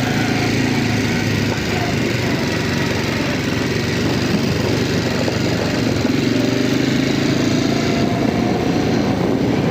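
Quad bike (ATV) engine running steadily.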